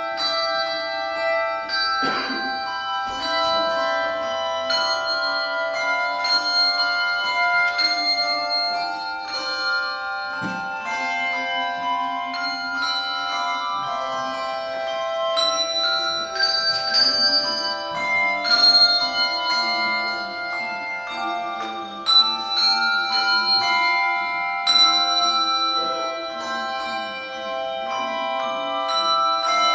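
Handbell choir playing a piece: tuned handbells struck in chords and melody, each note ringing on and overlapping the next.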